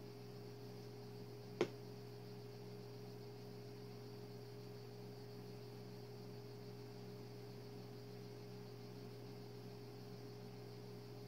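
Faint room tone: a low steady hum over light hiss, with a single short click about one and a half seconds in.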